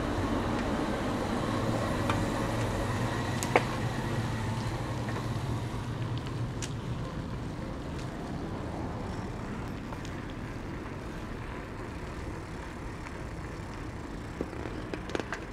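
Steady outdoor road-traffic noise. A vehicle's low engine hum fades away over the first six seconds, leaving a steady rushing. There is a single sharp click about three and a half seconds in, and a few light ticks near the end.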